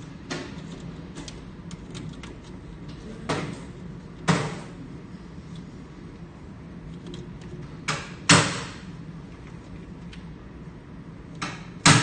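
Sharp knocks and clacks of hands working wiring and parts on a steel control-panel door, coming in three pairs about four seconds apart, over a low steady hum.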